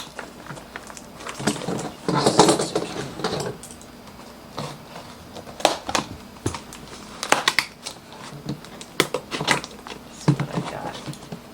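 A mailed package being opened by hand: packaging crinkling and rustling, with a longer stretch of rustling about two seconds in and scattered sharp clicks and taps through the rest.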